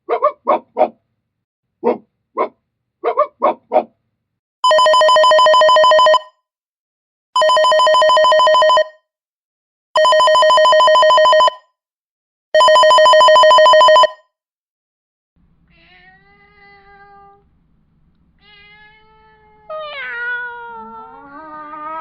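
A dog barks in quick short yaps, then a telephone rings four times in even, steady rings. A cat then meows with sliding pitch, faint at first and louder near the end.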